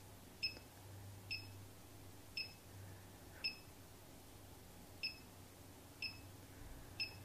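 Seven short, faint electronic beeps from the Optimum G2.1 blender's control panel, about one a second, as its programme settings are stepped through to pick the sorbet preset before blending.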